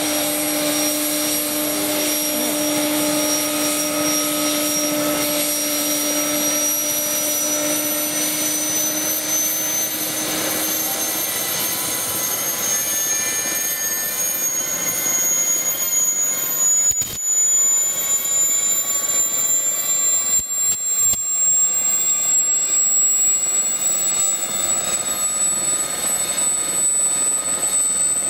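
Army Air Corps Gazelle helicopter's Turbomeca Astazou turboshaft engine starting up: a high turbine whine that slowly rises in pitch as the engine spools up. A lower steady hum under it stops about a third of the way in.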